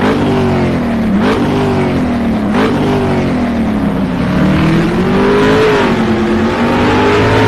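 Vehicle engine accelerating hard through the gears, its pitch climbing and dropping back at shifts about one and two and a half seconds in, then rising and falling more slowly before cutting off suddenly.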